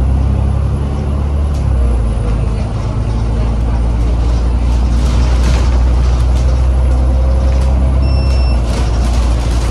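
Cummins diesel engine of an Alexander Dennis Enviro 500 MMC double-deck bus pulling along the road, heard from inside the cabin as a steady low drone over road noise; the engine note changes about two seconds in. A short electronic beep sounds near the end.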